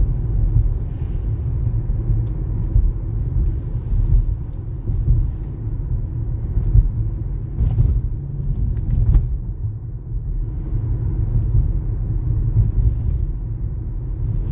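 Road noise inside a moving car: a steady low rumble of engine and tyres heard from the cabin.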